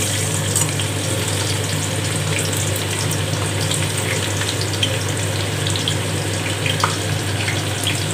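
Sliced onions dropped into hot sunflower oil in a large pot, sizzling steadily as they start to fry, with scattered small crackles and ticks.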